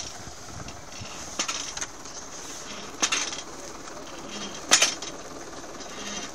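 Tractor-drawn plastic-film laying implement running over a bed, a steady running noise with sharp rattles or clinks about every second and a half.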